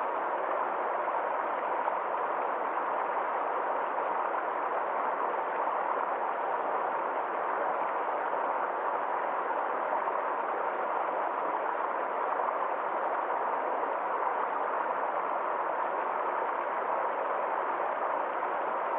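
A small stream flowing, giving a steady, even rush of water that never changes.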